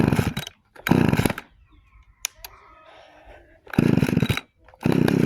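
Echo CS-330EVL two-stroke chainsaw being pull-started with the choke off. Three short bursts come from pulls on the starter cord, then the engine catches near the end and runs steadily.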